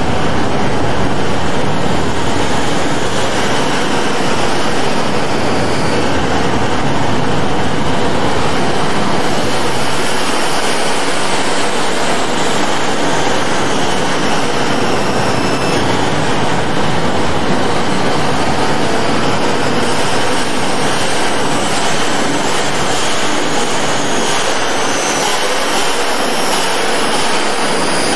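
Dense, loud electronic noise music from many overlapping sampled notes played at once through sforzando sampler instruments, heard as one steady wash of sound with no clear beat or melody.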